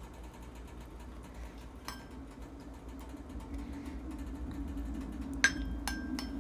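A few light clinks of a utensil against a serving dish, each ringing briefly: one about two seconds in and two close together near the end. A faint steady hum runs underneath.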